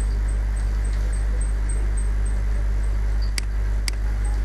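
Steady low electrical hum and hiss from the recording setup, with two short clicks about half a second apart near the end.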